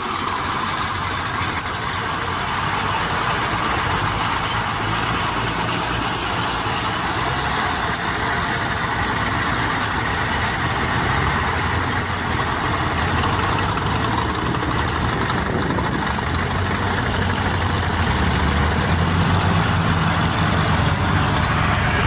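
Many diesel tractor engines, crawler and wheeled tractors together, running steadily under load as they pull ploughs through the soil, a dense continuous engine noise. The low engine sound grows a little heavier near the end.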